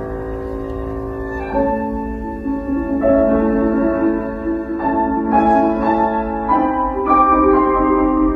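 Erhu playing a slow melody with piano accompaniment: a long held note, then from about a second and a half in, a run of changing notes over chords.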